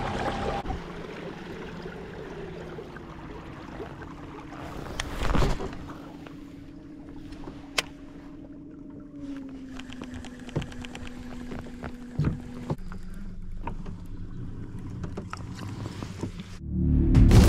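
Water moving along a fishing kayak's hull while a baitcasting reel is wound in on a retrieve, with a steady low hum that drops in pitch partway through and a few sharp clicks. Loud music comes in near the end.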